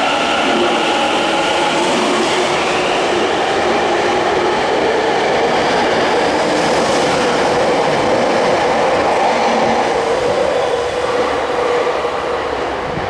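Tobu 50050 series electric commuter train accelerating away from a subway platform: the whine of its Hitachi IGBT-VVVF inverter rises in pitch over the running noise of the wheels as the cars pass. The sound falls away near the end as the last car leaves.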